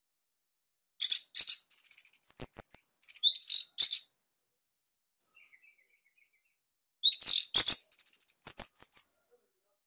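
Orange-headed thrush (anis merah) singing: two rapid phrases of high, quick notes about a second in and again near seven seconds, with a short faint note between them.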